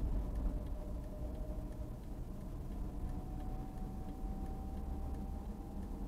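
Car driving slowly, heard from inside the cabin: a steady low engine and road rumble, with a faint steady whine that becomes plainer about halfway through.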